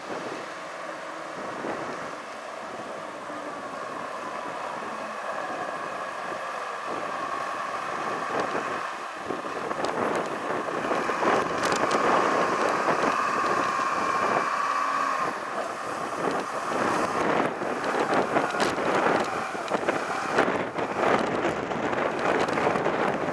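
Cat IT18B wheel loader's diesel engine running as the machine drives closer, growing steadily louder, with a steady whine through the middle. Near the end the sound turns uneven and rises and falls as the loader lifts its bucket.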